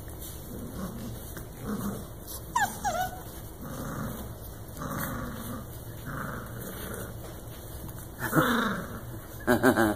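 Puppies play-fighting with small growls and whines. A short high whine comes about three seconds in, with scuffling between, and a louder yip near the end.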